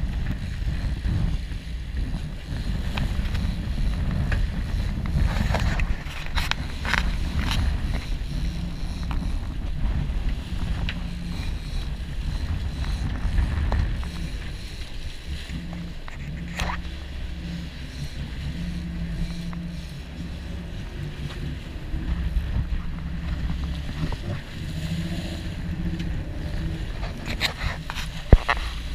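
Boat engine running under a steady low rumble, with wind and rushing water hissing over it. A few sharp knocks come through now and then, the loudest near the end.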